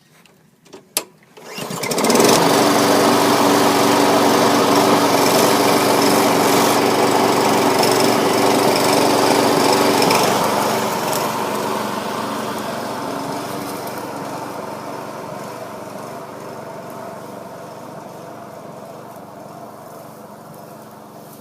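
Petrol rotary lawnmower with a freshly fitted replacement engine: a couple of clicks, then the engine starts about two seconds in and runs steadily and loudly. From about ten seconds on it fades steadily as the mower moves off cutting grass.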